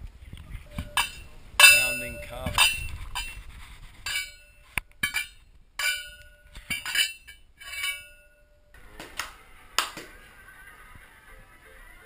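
A long pole pounding down into a metal mortar, each blow a clanging hit with a ringing metallic tone. The strikes are irregular, about once or twice a second, and stop shortly before the end.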